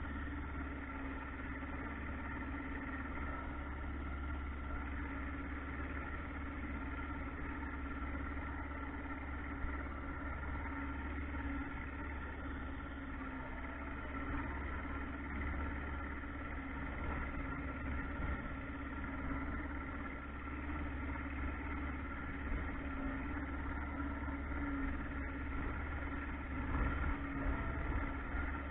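Boat motor running steadily, a constant low rumble with a steady hum on top.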